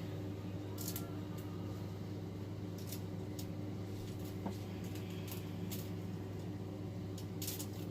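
Scattered light clicks and clatters of plastic K'NEX pieces as a K'NEX claw arm is worked and handled, about seven short clicks in all, over a steady low hum.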